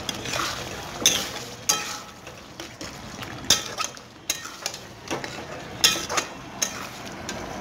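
A metal spoon scrapes and clinks against a kadai as yogurt-marinated chicken pieces are stirred into a sizzling spice paste, with sharp scrapes roughly a second apart over a steady frying sizzle.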